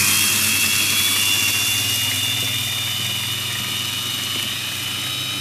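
Small electric chopper running at full speed, grinding blanched almonds into powder: a steady high motor whine over a low hum, its pitch creeping up slightly as the nuts break down.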